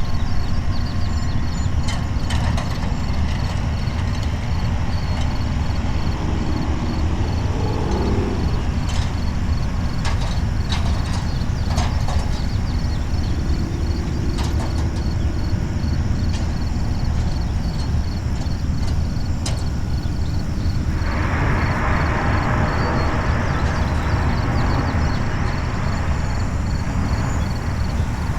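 Heavy machinery engine running steadily with a deep rumble, with scattered sharp metallic clanks. About 21 seconds in, a loud hiss joins it.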